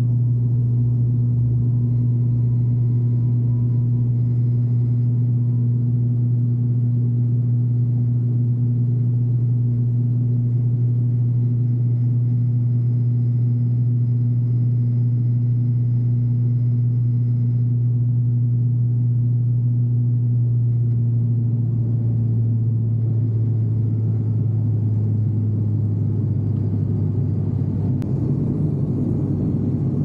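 Turboprop airliner's engine and propeller, heard inside the cabin during takeoff and climb: a loud, steady drone with a deep hum. A little after two-thirds of the way through, the hum drops slightly in pitch and turns rougher.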